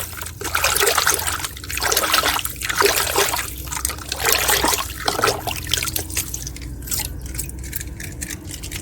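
Water splashing and trickling over a plastic toy truck as it is rinsed by hand. The sound comes in uneven surges and eases off after about five seconds.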